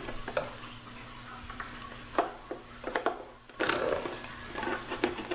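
A spatula scraping and tapping against a waffle maker's plates as a crisp tater tot sandwich is pried loose, with a few short clicks at first and a longer, louder scrape in the last two seconds as it comes free. A faint low hum sits underneath for the first half.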